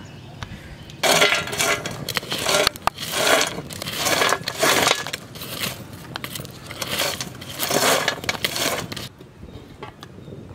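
Charcoal and burning embers being shifted and scraped with a wooden stick: a run of crunching, rattling scrapes that stops about nine seconds in.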